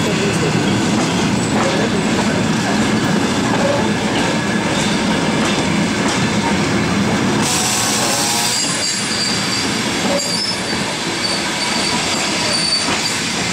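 Passenger coaches of a long-distance train rolling slowly past, their wheels rumbling and clattering over the rails, with high wheel squeals in the later part. A brief hiss comes about halfway through.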